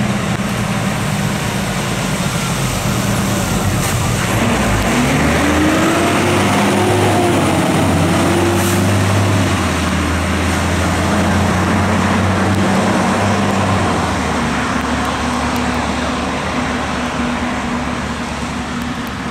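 Fire engine's diesel engine pulling past on a wet road, its tyres hissing through standing water. The engine grows louder through the middle, then fades as the truck moves away.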